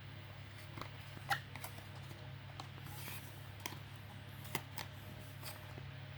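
Scattered light clicks and taps, about a dozen, over a steady low hum; the sharpest click comes about a second in.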